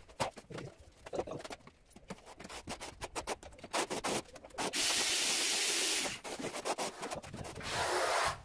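Steel notched trowel scraping and combing tile adhesive over a cement screed floor: a run of short rasping strokes, with a loud steady hiss lasting about a second near the middle and another shorter one near the end.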